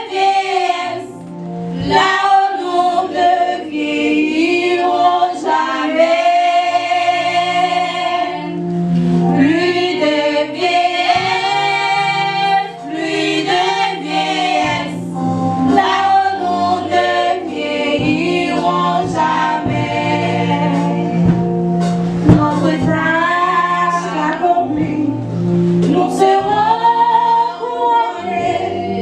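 A group of voices singing a gospel hymn together, holding long notes over steady low accompanying notes.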